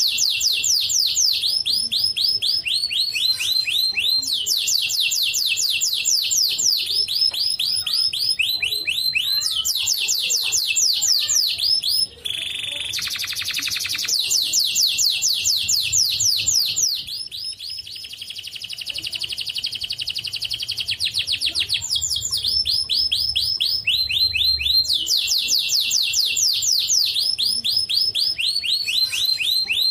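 White canary singing a long song of rapid repeated trills, phrase after phrase, with a buzzy rolling stretch about twelve seconds in and a softer, higher rolling trill a few seconds later.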